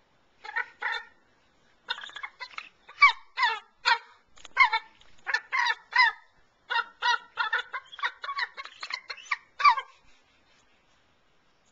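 Juvenile bald eagle calling: two short calls, then a rapid run of about twenty short, high, piping calls, several of them dropping in pitch.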